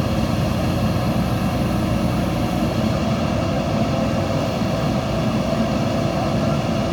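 Diesel engine of a JCB backhoe loader running steadily under work.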